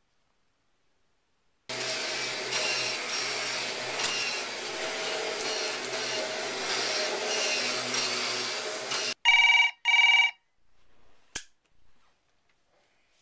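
A steady, noisy whirring runs for about seven seconds and cuts off suddenly. Then a desk telephone rings, two short rings close together in a double ring, followed by a single click.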